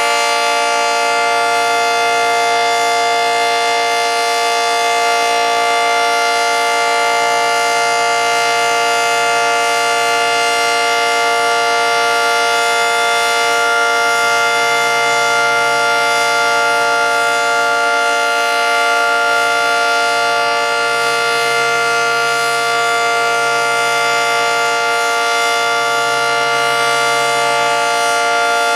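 Early-1960s Federal Signal 2T22 dual-tone outdoor warning siren sounding a steady chord at full speed during a siren test, its pitch held level throughout.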